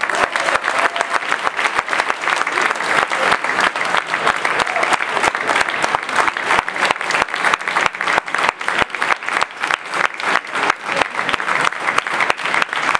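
Audience applauding: many hands clapping in a dense, continuous patter.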